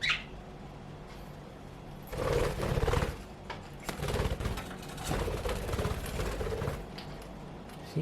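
A budgerigar gives a short falling chirp. About two seconds later comes a few seconds of close, rapid, buzzy rattling.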